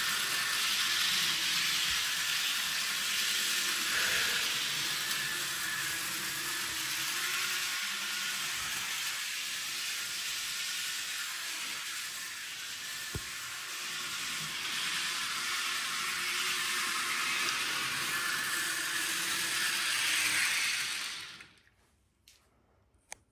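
Bachmann HO-scale Thomas the Tank Engine model train running on its track, a steady hissing whir that cuts off suddenly near the end, followed by a couple of faint clicks.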